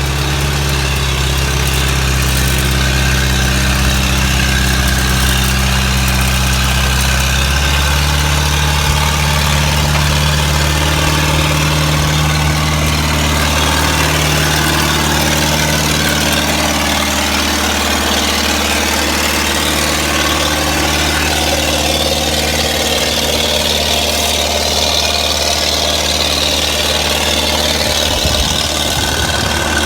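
Diesel engine running steadily, its note shifting to a different speed about a quarter of the way in and again a little past halfway.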